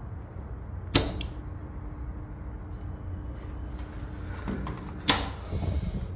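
Sharp handling clicks and knocks, one about a second in with a smaller one just after and another near the end, over a steady low hum; a faint steady tone runs between the clicks.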